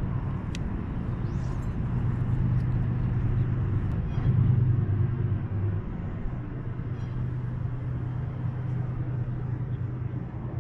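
A boat motor running with a steady low hum, swelling briefly about four seconds in.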